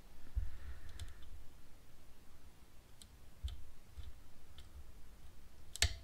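Faint scattered clicks of a lock pick and tension wrench working the pins of a clear acrylic pin-tumbler practice lock, with one louder click near the end.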